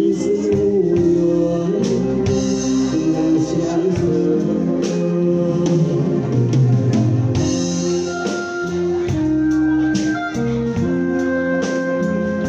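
Live band with electric guitars and keyboard playing a slow ballad, with regular drum beats, while a man sings into a microphone; near the end his voice drops out and the band carries on alone.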